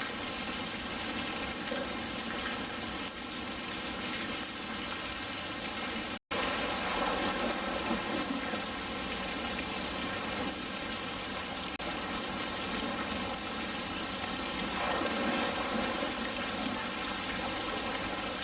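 Steady rush of running water, with a brief cut-out about six seconds in.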